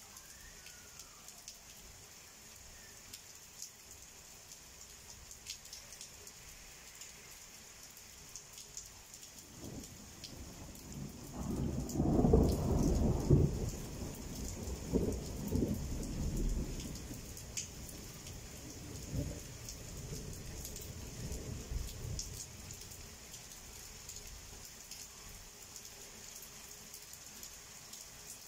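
Steady rain falling, with scattered drop ticks. About ten seconds in, a long roll of thunder builds, peaks a couple of seconds later, and rumbles on in several waves before fading out past twenty seconds.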